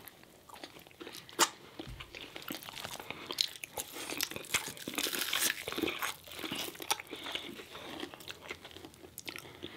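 Biting and chewing food: crunchy bites into corn on the cob and a fried hush puppy, with a sharp crunch about a second and a half in and denser crunching in the middle.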